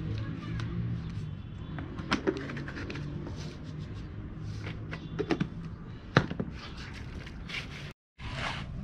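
Hands mixing flour and water into dough in a steel basin: scattered clicks and knocks of hands and a plastic jug against the metal, the loudest about six seconds in, over a low steady hum. The sound cuts out briefly near the end.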